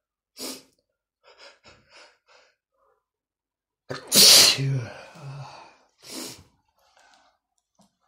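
A man's sneeze, brought on by tickling his nose. A few short catching breaths build up, then one loud sneeze comes about four seconds in and trails off, followed by a short breath.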